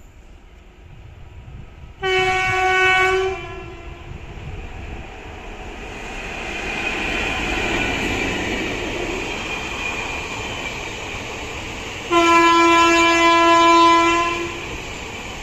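Indian Railways WAP-4 electric locomotive sounding its horn twice, a short blast about two seconds in and a longer one near the end, the second slightly lower in pitch. Between the blasts the rumble of the passing train and its ICF coaches swells and holds.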